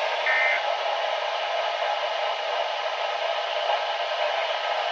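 NOAA weather radio receiver hissing with steady static between broadcast messages, with a short high beep about a quarter of a second in.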